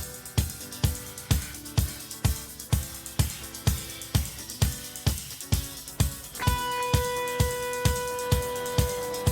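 Instrumental rock intro: a steady drum beat at about two hits a second, with a long sustained note joining about six and a half seconds in.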